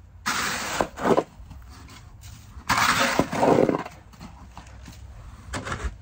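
Plastic snow shovel scraping across a snowy, slushy paved walkway: two short scrapes in the first second, then a longer scrape around the middle.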